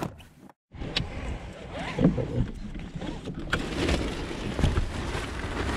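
Knocks and rustling from a camera being handled inside a car cabin, over a low steady rumble.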